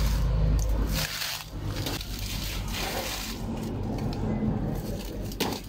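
Banana leaves rustling and crackling as they are pulled and cut from the plant with a knife, with a sharp snap near the end. A low rumble on the microphone in the first second.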